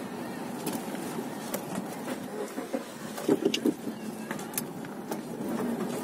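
Road and engine noise inside a moving car's cabin: a steady hum with a few faint clicks, and a short louder patch about three and a half seconds in.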